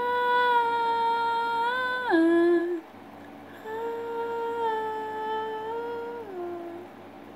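A young woman's voice sings two long wordless notes, each held steady and then sliding down at the end.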